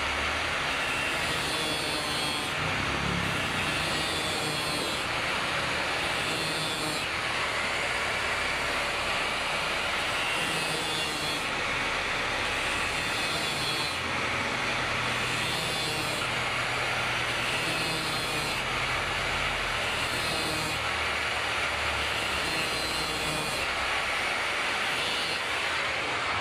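Repeated back-and-forth scraping strokes of a hand tool working metal, about one stroke a second, over a steady rumbling background.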